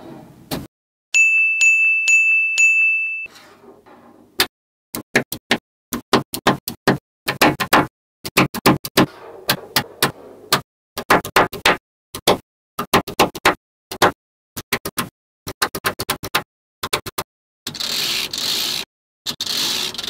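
Small neodymium magnetic balls clicking sharply against each other in quick, irregular clusters as they snap together. Before the clicks, a loud steady high beep runs for about two seconds, and a hissing rush comes near the end.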